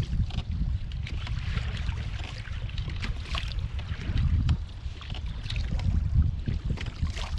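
Wind buffeting the microphone in a strong, uneven rumble, with choppy waves slapping and splashing against a plastic kayak hull.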